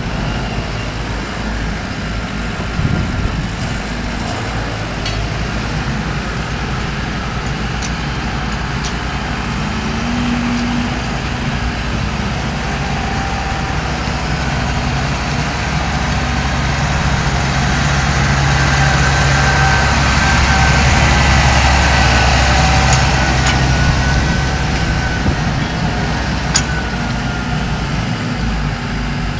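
JCB 150X HD excavator with its JCB EcoMAX diesel engine running steadily while digging soil, growing louder for a while midway as it works under load, with a few light knocks.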